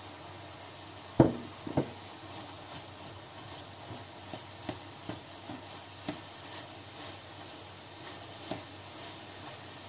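Minced meat and chopped onion sizzling quietly in a frying pan while a spatula stirs them, with light clicks and scrapes against the pan. Two sharp knocks about a second in are the loudest sounds.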